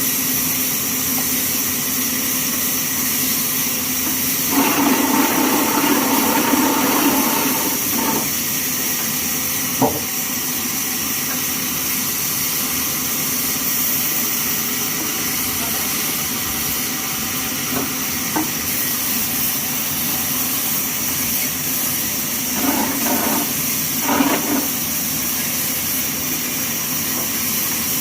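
Band sawmill machinery running steadily: a constant hiss with a high, even whine. About four seconds in, and again a little after twenty seconds, a louder stretch of a few seconds stands out.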